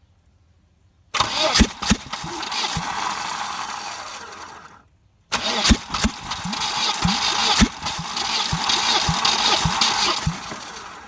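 Volvo B230F inline-four engine cranked on the starter in two tries, one beginning about a second in and a longer one after a short pause, with irregular coughs in each. Only one cylinder, the second, fires, and the engine does not catch.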